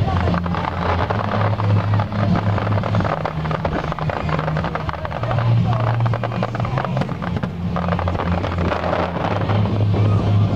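Fireworks display: many rapid pops and crackles of bursting shells over a soundtrack of music with a deep, held bass line.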